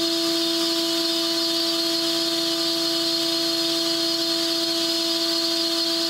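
Makino S56 vertical machining center's spindle running steadily at its top speed of 20,000 RPM, a constant whine with no change in pitch or level.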